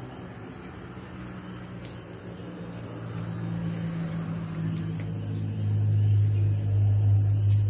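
Crickets chirring steadily in the night, with a low steady hum underneath that grows louder about two-thirds of the way through.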